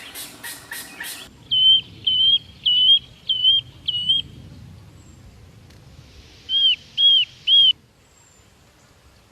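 Kincrong bird singing: about a second of rapid harsh notes, then five clear whistled notes in quick succession. After a pause, three more of the same whistled notes follow.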